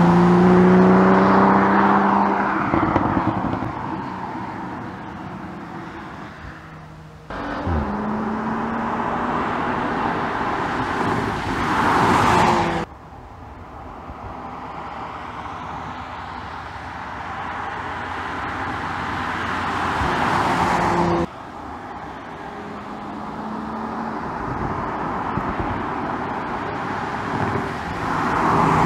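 Toyota GR Supra 2.0's turbocharged 2.0-litre inline-four engine and exhaust as the car drives past in several shots, the engine note swelling as it approaches and fading as it pulls away, with the sound jumping abruptly at each cut.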